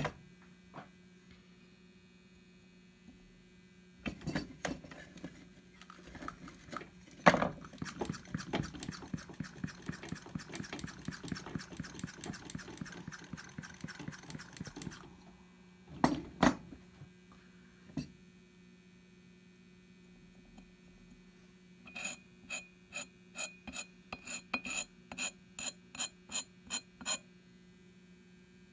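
Lab glassware and utensils being handled over a steady electrical hum. There are a few sharp knocks, then several seconds of fast scraping or stirring, and near the end a run of regular light glassy clinks, two or three a second.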